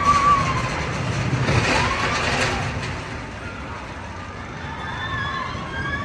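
Theme park ambience: a steady low mechanical rumble with people's whoops and yells over it, two short rising yells in the first couple of seconds and several voices overlapping near the end.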